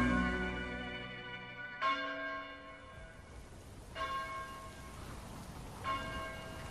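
A bell struck three times, about two seconds apart, each stroke ringing on, while music fades out at the start.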